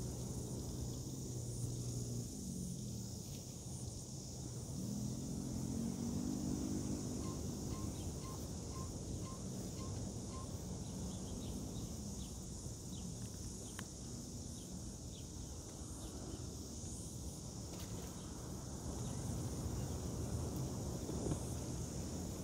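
Insects trilling steadily at a high pitch. Beneath them a low hum rises and falls, with a few light clicks near the middle.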